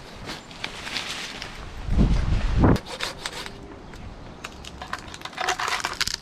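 Tree branches and leaves rustling, with wood rubbing and scattered clicks. A loud low rumble comes about two seconds in.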